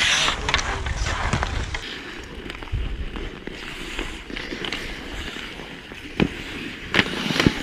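Ice hockey play: skate blades scraping the ice, with sticks and the puck clacking, including a few sharp knocks near the end.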